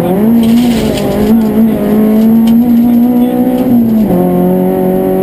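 Citroën Saxo rally car's four-cylinder engine, heard from inside the cabin, climbing in pitch and held at high revs under hard acceleration. It drops abruptly about four seconds in at a gear change.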